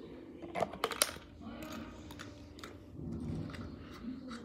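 A few sharp plastic clicks and taps on a tile floor, loudest about a second in, as a toy horse is jumped at a small bar made of a rod resting on plastic cup supports and knocks it down, followed by softer scattered ticks.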